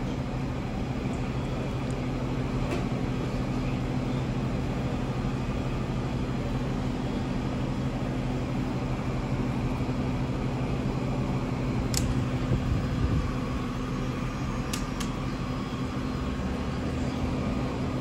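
A steady machine hum, like a fan or air conditioner running, with a few light clicks of small metal lock parts being handled, once around 3 seconds in, once around 12 seconds and twice near 15 seconds.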